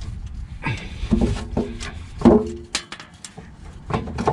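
A man grunting and straining as he wrestles a heavy starter motor out from under the car, with sharp metal knocks about two seconds in as the starter shifts against the frame.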